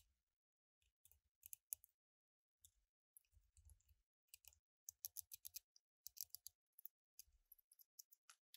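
Faint, quick clicks and light taps in irregular runs: small metal hand tools and fingers handling a cassette deck's circuit board.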